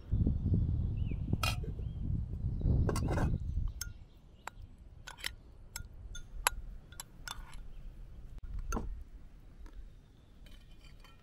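Metal spoon clinking and scraping against a small glass bowl while rice is spooned out, a string of light, irregular clinks. A low rumble fills the first four seconds.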